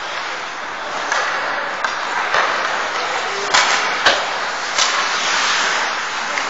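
Ice hockey rink sound during play: a steady hiss with about half a dozen sharp knocks and clacks of sticks, puck and skates on the ice. The loudest knocks come about three and a half and four seconds in.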